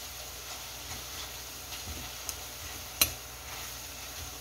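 Beef steak and vegetables sizzling in a stainless steel frying pan, with metal tongs clicking against the pan as the meat is turned; one sharp clack about three seconds in.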